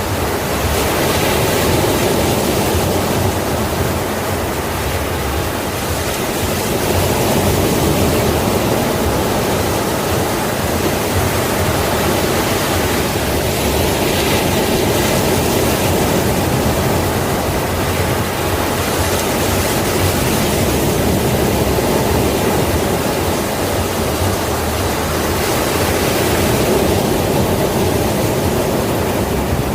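Sea waves breaking and washing in a steady rush of surf, swelling and easing every few seconds.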